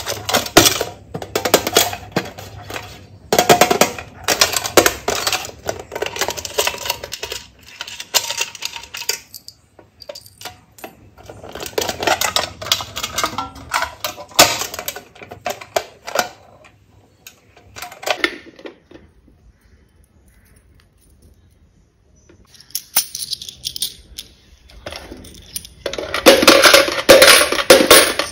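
Coins and a toy coin bank being handled: rapid clinks and clicks in bursts, with a quiet stretch of a few seconds after the middle. It ends in a loud flurry of clinks as coins are put to the bank's slot.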